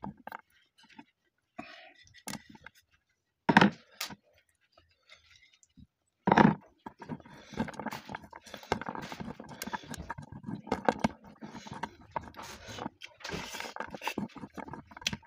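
Fingers mixing rice and curry on a plate: wet squishing and scraping, a few scattered clicks at first, then continuous from about six seconds in, with a couple of louder knocks.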